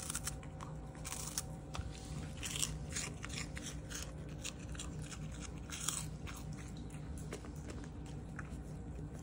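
A long-haired dachshund biting and chewing a whole capelin (shishamo) with roe, in quick crunching bites that come thick for about six seconds and then thin out.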